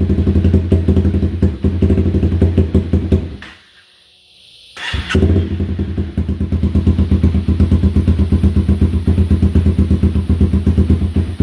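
2016 Honda CBR300R single-cylinder engine running rough, dying about three and a half seconds in, then catching again a second later and running on. The engine is struggling to stay running while it is urged to get good fuel through it.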